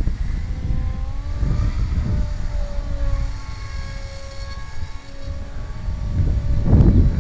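Electric motor and propeller of a small foam RC canard plane whining in flight overhead, its pitch shifting up and down. Wind buffets the microphone with a low rumble, loudest near the end.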